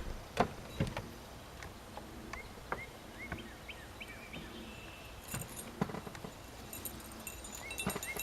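Outdoor ambience with short bird chirps repeating every half second or so, a few sharp clicks, and some high jingling in the second half.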